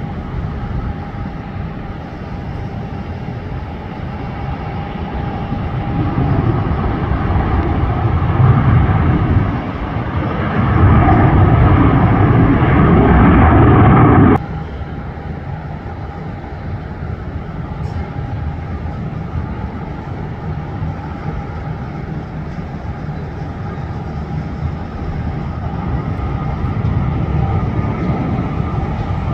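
Boeing 737 jetliner's engines at takeoff thrust during its roll down the runway: a steady roar with a faint held tone, swelling to its loudest in the middle and then cutting off abruptly. A second 737's engines then run up on its takeoff roll, the roar growing again near the end.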